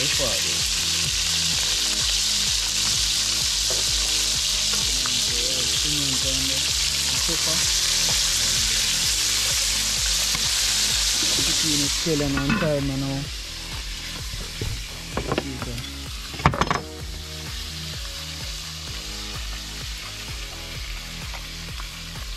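Fish chunks frying in hot oil in a pan over a wood fire, sizzling steadily. About twelve seconds in the sizzle falls much quieter, and a few sharp knocks follow.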